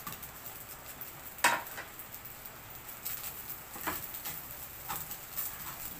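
A wooden spatula stirring and scraping fried rice in a frying pan over a faint sizzle, with scattered knocks of the spatula against the pan. The loudest knock comes about one and a half seconds in, and smaller clicks and scrapes follow in the second half.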